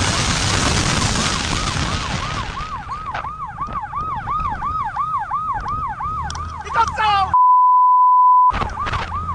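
Police siren in a fast yelp, its pitch rising and falling about three to four times a second, with heavy wind and engine noise over it at first. A little after seven seconds in, a loud steady beep of about a second replaces everything, then the siren resumes.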